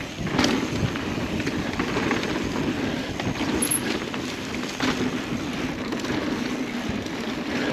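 Mountain bike rolling fast on a dry dirt trail: steady knobby-tyre noise and wind on the microphone, with a few sharp rattles and knocks from the bike over bumps.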